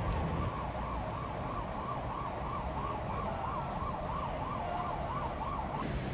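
Emergency vehicle siren sounding a fast yelp, its pitch rising and falling about three times a second, cutting off near the end, over steady low background noise.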